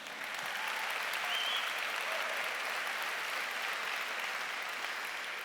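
Large audience applauding, swelling in quickly and holding steady, with a few faint voices in the crowd.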